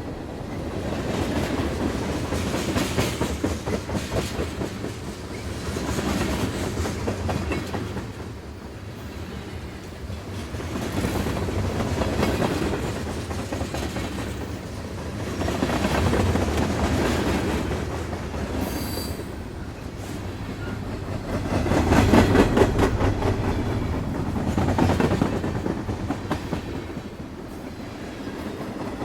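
Train running along the track: a continuous rumble with the rhythmic clickety-clack of wheels over rail joints, swelling and easing every few seconds.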